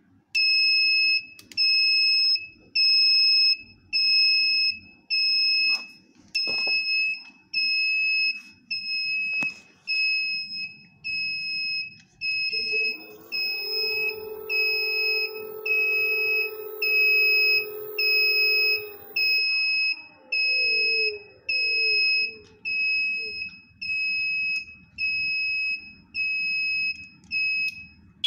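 An electronic buzzer on an E10 electric scooter beeps steadily, about once a second, after the scooter is switched on. About halfway through, the brushless hub motor spins up and runs with a steady whine for several seconds, then drops in pitch as it winds down.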